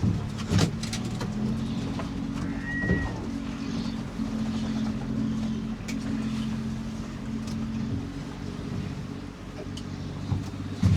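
A boat engine running steadily, a low hum that fades out about eight seconds in, with a few sharp knocks near the start and end.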